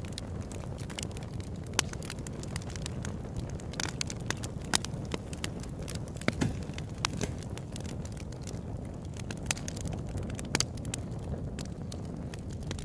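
Log fire burning on a fireplace grate, crackling with irregular sharp pops over a steady low rumble of the flames.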